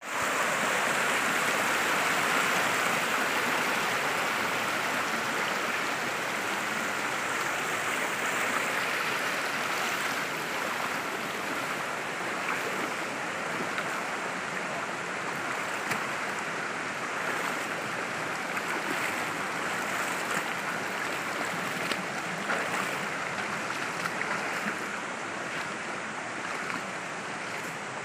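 Shallow rocky stream rushing and splashing over boulders in a steady rush of water that gradually grows a little quieter.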